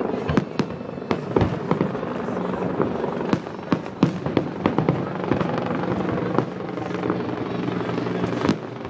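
Aerial fireworks shells bursting in a rapid, irregular barrage of a dozen or more sharp bangs, over the voices of a large crowd.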